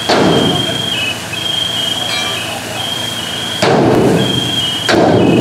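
Three heavy blows of a firefighter's hand tool against the steel body of a burning garbage truck, each a hard bang followed by about a second of rattling noise, the last two about a second apart. A high tone breaks on and off underneath.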